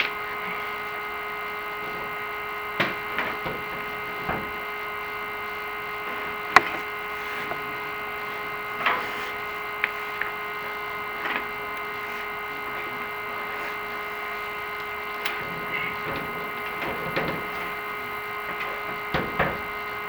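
Steady electric whine from the chimney inspection camera rig, several tones held at one pitch, with scattered sharp clicks and knocks as the camera head is worked down the clay-tile flue; the loudest knock comes about a third of the way in.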